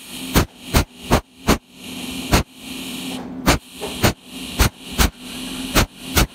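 Cold welding machine firing pulse after pulse from its tungsten needle as filler wire is fed into a hole in sheet metal: a sharp snap with each pulse, about eleven in all at uneven intervals of a third of a second to a second, over a steady electrical hum.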